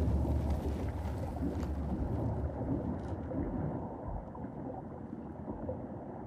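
Deep underwater rumble that slowly fades, with a few faint clicks.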